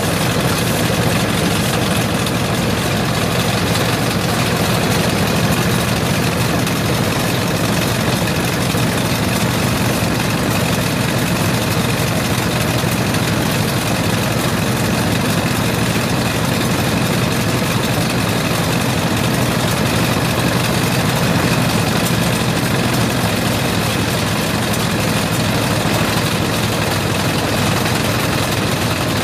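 Small engine running steadily, driving a Meadows stone grinder as it mills corn, the engine's run mixed with the hiss and rattle of the mill.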